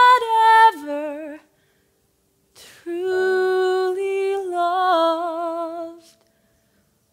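A woman singing a slow musical-theatre ballad solo, holding long notes with vibrato. One phrase ends about a second and a half in. After a pause, a second phrase runs until about six seconds in.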